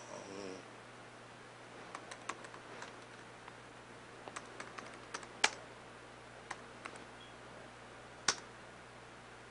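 Laptop keyboard being typed on: scattered soft keystrokes, with a louder key press about five and a half seconds in and another near the end.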